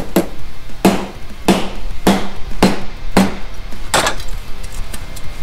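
Hammer blows on a metal tool, about seven sharp ringing strikes at a steady pace of roughly one every half-second to second, setting a slight countersunk dimple in the car's sheet-metal panel with a homemade tool.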